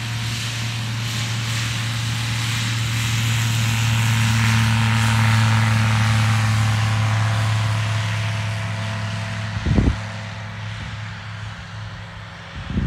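Light single-engine propeller aircraft taking off, its engine droning steadily at full power, growing louder as it passes and fading after about eight seconds. A brief thump on the microphone about ten seconds in.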